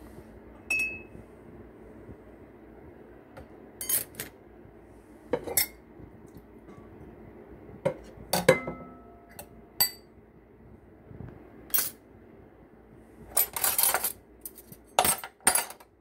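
Ceramic plates and bowls and metal cutlery clinking and knocking together as they are handled, in scattered sharp clinks that come thicker near the end. One knock about eight seconds in rings briefly.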